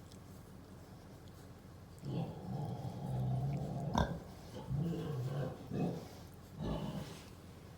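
Pig grunting: a run of low grunts for about five seconds, starting two seconds in, with a sharp click in the middle.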